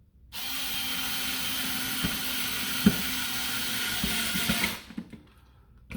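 Small handheld power tool motor running steadily with a high whine for about four and a half seconds, starting and stopping abruptly, with a few sharp clicks in the middle.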